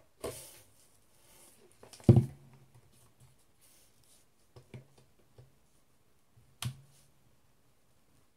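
A few sharp clicks and knocks from handling, the loudest about two seconds in and another well after the middle, with quiet gaps between.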